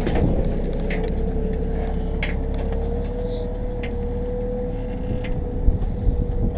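Valtra 8550 tractor pulling a Väderstad Rapid 400C seed drill across a field: steady engine and drivetrain noise with a constant whine, and scattered light clicks from the drill. A low buffeting grows near the end.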